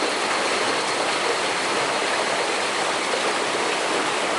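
Steady rush of flowing water from a stream.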